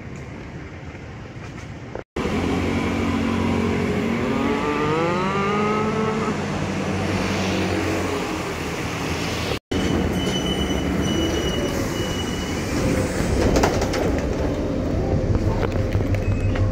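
Street traffic noise with a vehicle pulling away in a rising whine, then a city bus's engine running with a low, regular throb as the bus is boarded; a few short high beeps sound in between.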